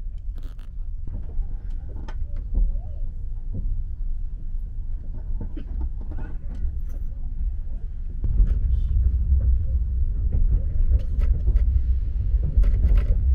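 Low rumble inside a TGV inOui high-speed train carriage as the train runs, growing louder about two-thirds of the way through, with a few light clicks and knocks over it.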